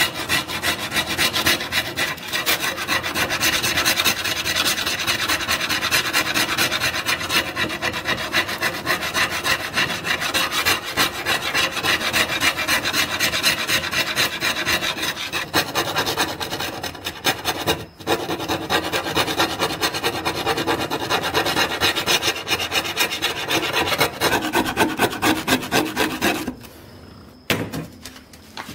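Steel chisel scraping rust off a thin steel saw blade on a wooden bench: a harsh metal-on-metal rasp in rapid repeated strokes. It stops shortly before the end.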